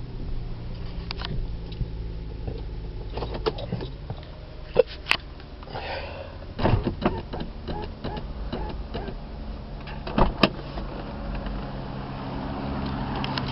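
A vehicle engine running at idle, a steady low hum, with several sharp clicks and knocks over it, the loudest about five and ten seconds in.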